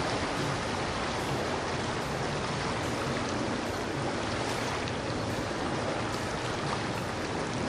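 Steady rush and splash of water off the hull of a passing center-console motorboat, with a low engine hum underneath.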